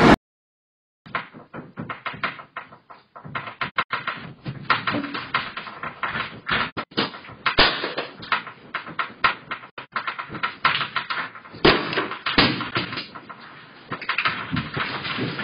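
A phone shop's shelves, fittings and hanging signs rattling and clattering as the building shakes in a strong earthquake. The sound starts about a second in as dense, irregular clicks and knocks with louder clusters, heard muffled through a security camera's microphone.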